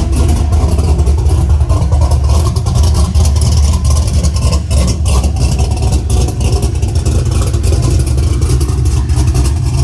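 Cammed GM LS V8 engine in a pickup truck running, loud and steady, with a deep rumble and no clear rev rise or fall.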